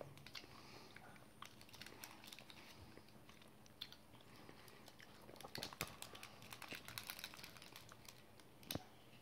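Faint crinkling and clicking of a small plastic candy wrapper being picked open by hand. The clicks are busiest past the middle, with one sharper click near the end.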